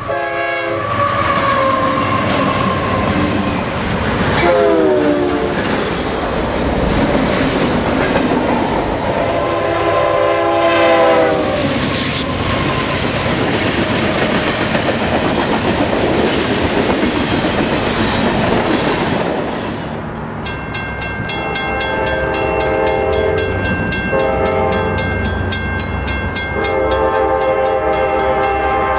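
Freight trains passing with diesel locomotive air horns sounding several times over the rumble and wheel clatter of the cars. One horn blast about four seconds in drops in pitch as the locomotive goes by. In the last third a horn sounds three times, the last blast the longest.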